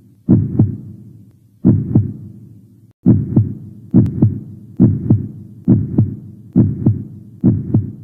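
Heartbeat sound effect: eight loud lub-dub double thumps, the first few about a second and a half apart, then quickening to a little under one a second.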